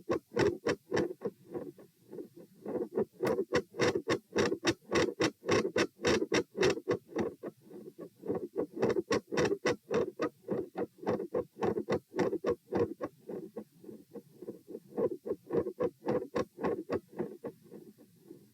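Heart sounds heard through a stethoscope at the pulmonic area: a quick, regular lub-dub of S1 and S2 at roughly 100 beats a minute. The beats swell louder and fade softer every few seconds with breathing, and S2 is split.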